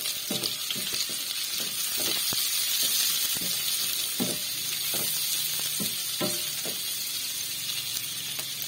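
Onion, garlic and ginger sizzling in a nonstick frying pan, with a wooden spatula stirring and scraping across the pan about once a second.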